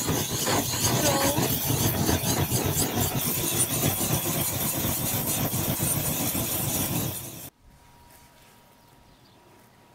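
Handheld butane gas torches running, a loud steady rushing hiss of flame. It cuts off abruptly about three-quarters of the way through, leaving only a faint quiet background.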